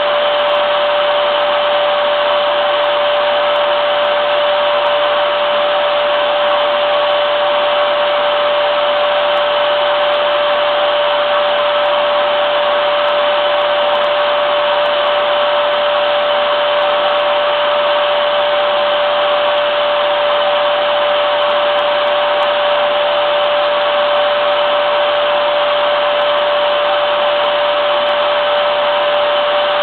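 Vacuum cleaner motor running steadily: an even hiss with a constant high hum, no change in speed.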